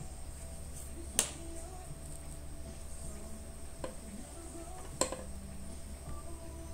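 Three sharp clicks on a hard surface, a loud one about a second in, a softer one near four seconds and another loud one about five seconds in, over a steady low hum.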